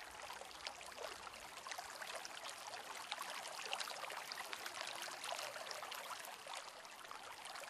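Faint, steady background of trickling, running water with fine crackles.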